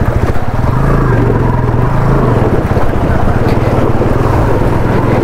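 Motorcycle engine running steadily in first gear as the bike wades through a flowing river, with water rushing and splashing around the wheels.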